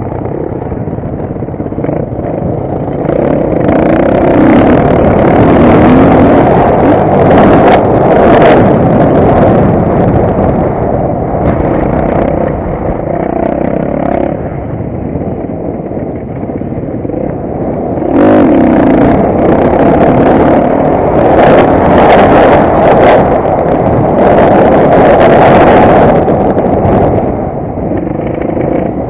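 Motocross bike engine racing under hard throttle, rising and easing off in long surges, loudest in two stretches with a lull between them.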